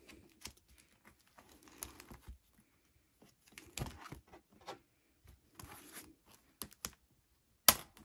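Clear plastic binder sleeve pages crinkling and rustling as they are handled and pulled from a ring binder, with scattered light clicks. Near the end comes one sharp click from the binder's metal rings.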